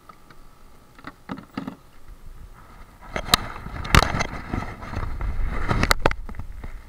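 Handling noise right at the camera's microphone: rustling, scraping and sharp knocks as a caught mangrove snapper is brought up to the lens. It grows louder about three seconds in, with a low rumble, and the sharpest knocks come around four and six seconds in.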